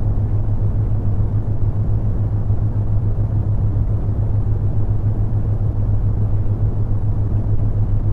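Brown noise: a steady, muffled, low hiss with no changes, over which runs a constant low hum from the theta-wave tone.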